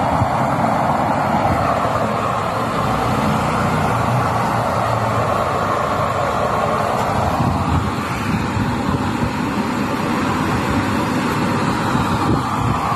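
Homemade waste-oil stove burning with forced air from a small electric blower: a loud, steady rushing noise of fan and flame.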